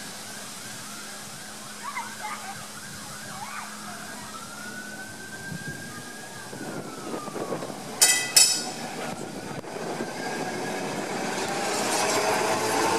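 A Glasgow Corporation double-deck electric tram approaching on street track. Its gong is struck twice in quick succession about eight seconds in, ringing sharply. Then comes the growing rumble of its wheels on the rails as it draws near and passes.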